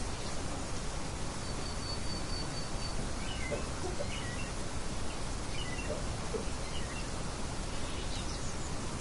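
Steady wind noise with small birds chirping over it: a quick run of about six high pips about a second and a half in, then scattered short chirps through the middle and again near the end.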